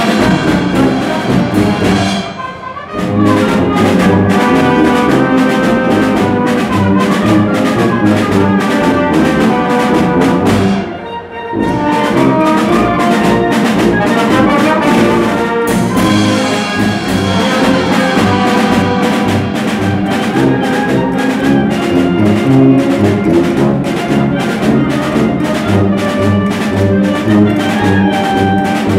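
A live banda, a Mexican brass band, playing: trumpets and trombones over a steady drum beat. The music drops out briefly twice, about two seconds in and again about eleven seconds in.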